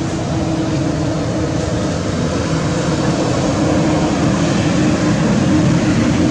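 Steady rumbling noise with a constant low hum running through it, unbroken throughout.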